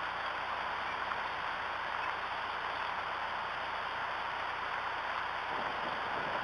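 Steady rain falling on leaves and the stick nest: an even hiss.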